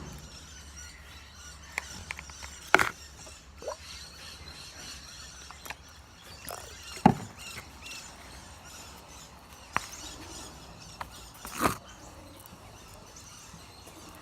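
A utensil stirring a thick slime paste of PVA glue and flour in a bowl, making scattered scrapes and clicks against the bowl every second or two.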